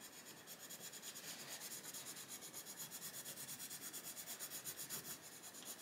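Castle Arts Gold coloured pencil scribbling back and forth on the paper of a colouring book: a faint, scratchy rubbing in quick even strokes, about six a second.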